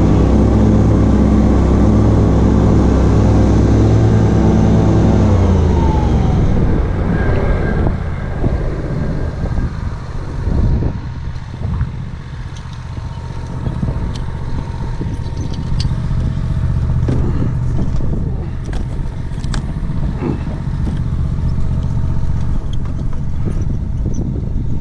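Dixon mower's engine running at high speed; about six seconds in its pitch falls as the engine slows. It keeps running lower and quieter, with scattered knocks and rattles.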